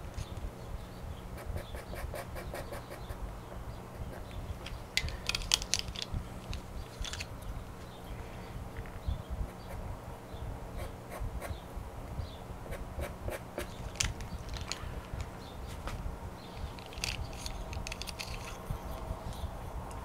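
Pastel pencil scratching and tapping on paper: short strokes and quick runs of dabs, with clusters of taps about five seconds in and again near the end, over a low steady hum.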